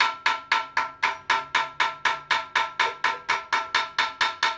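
Rapid, evenly spaced metal-on-metal clanks, about four a second, each ringing briefly, from work on the steel drum and shaft of a rice threshing machine.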